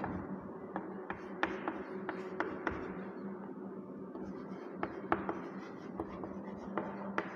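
Chalk writing on a chalkboard: an irregular string of sharp taps and short scratches as each letter is stroked on.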